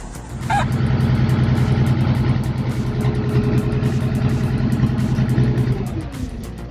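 Heavy machine's engine running steadily, dropping in pitch near the end.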